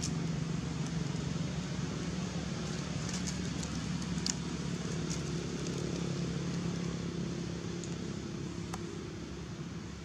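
Steady low rumble of outdoor background noise, with a few soft crackles of dry leaves around the middle.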